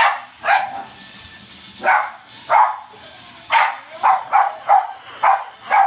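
Beagle puppy and Boston terriers barking as they scuffle: about ten short, sharp barks, a few spaced out at first, then in quick runs in the second half.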